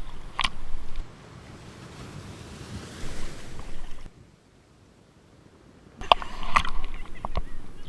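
Sea waves washing, with wind buffeting the microphone. A wave swells and washes through in the middle, and the sound cuts off abruptly into a near-silent gap about four seconds in. It returns with splashing and sharp clicks near the end.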